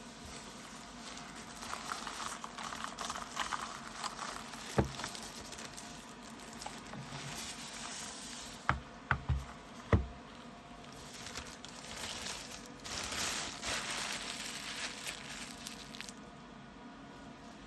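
Packaging rustling and crinkling as it is handled, with a single sharp knock about five seconds in and four quick knocks around nine to ten seconds.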